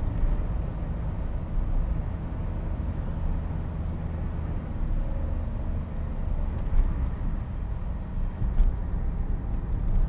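Car driving at road speed, heard from inside the cabin: a steady low rumble of tyre and engine noise.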